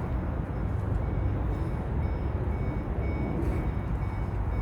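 A vehicle's reversing alarm beeping in short, evenly spaced pips, about two to three a second, starting about a second in, over a steady low rumble.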